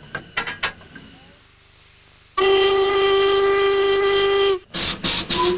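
Steam locomotive Duchess of Hamilton (LMS Coronation Pacific No. 46229) sounding its whistle with one steady, loud blast of about two seconds, then three short, loud hissing bursts of steam, as the engine is readied to move off. A few light knocks of the cab controls come before the whistle.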